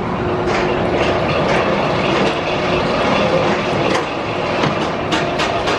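Bolliger & Mabillard stand-up roller coaster train rolling out of the station onto the lift hill, with the steady rumble of wheels and lift running. Near the end comes a quick series of clacks as the train starts up the hill, typical of the anti-rollback.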